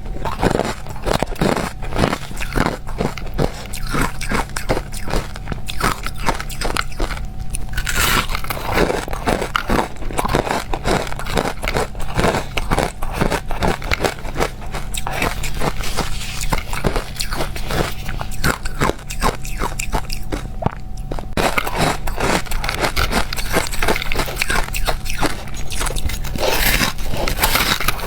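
Crushed ice being bitten and chewed close to the microphone: continuous crunching and cracking, many sharp crunches a second.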